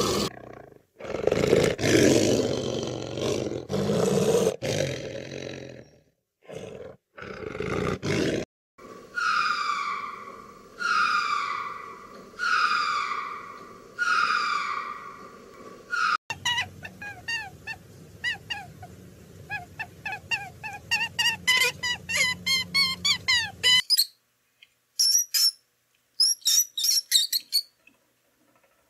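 Snow leopards giving a string of loud, rough calls; then a run of five falling calls spaced about a second and a half apart, with the ring-tailed lemurs; then a long series of quick rising chirps that come faster toward the end; near the end, faint clicks and squeaks from a dwarf hamster running in a plastic exercise wheel.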